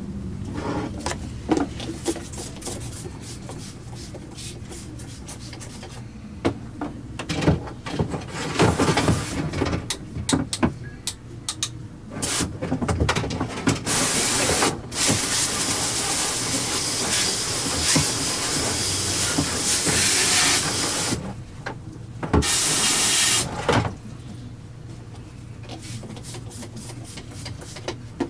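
Handling noise of small parts, with clicks and knocks, then a long steady hiss of rushing air lasting about seven seconds and a second short burst of hiss soon after.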